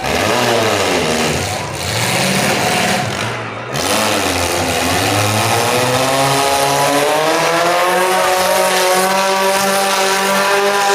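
Demolition derby car engines revving, their pitch dipping and rising, then climbing steadily from about four seconds in.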